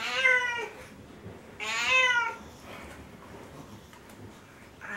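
Domestic cat meowing twice, two drawn-out calls each rising and then falling in pitch, while being towel-dried after a bath; the owner wonders whether the rough, scratchy towel hurts.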